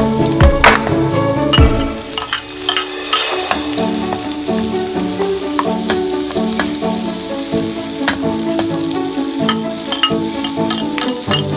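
Garlic, red onion and ginger sizzling in hot oil with browned pork pieces in an aluminium wok, stirred with a metal ladle that clicks and scrapes against the pan. Background music plays over it, with a low beat that stops about two seconds in.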